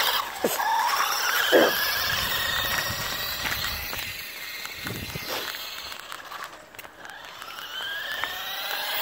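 RC buggy's motor whining, its pitch rising and falling as the throttle is worked, with a few short sharp sounds near the start and around the middle. It grows fainter about two thirds of the way through, then louder again near the end.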